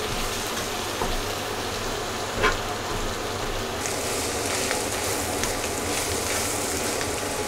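Beef mince and onions frying in butter in a pan, a steady sizzle, with a fork stirring and breaking up the meat and tapping against the pan a few times.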